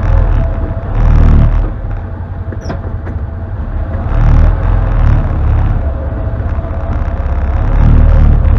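Can-Am Defender HD10 UTV's V-twin engine running at low speed, heard from inside the cab as the machine crawls over rough ground. The throttle is brought up and eased off three times: about a second in, around four and a half seconds in, and near the end.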